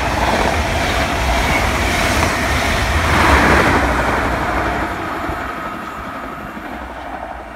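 High Speed Train (InterCity 125) passing at speed: steady rolling and rushing of the coaches' wheels on the rails, with the rear Class 43 diesel power car going by loudest about three seconds in. The noise then fades steadily as the train draws away.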